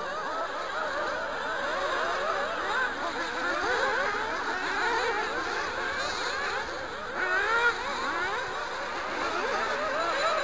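Several nitro-powered RC buggy engines racing at once, a tangle of high, buzzing pitches rising and falling as the cars are throttled on and off around the track.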